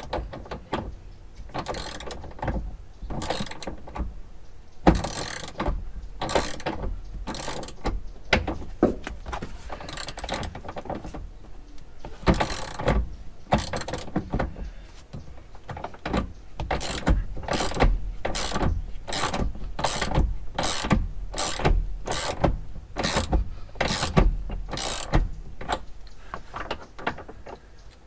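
Ratcheting metal clicks in repeated strokes, at one point about two a second, as parts are worked on during a truck seat belt installation.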